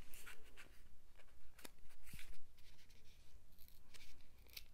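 Small cosmetics package being handled and opened by hand: scattered light clicks and short scratchy rustles.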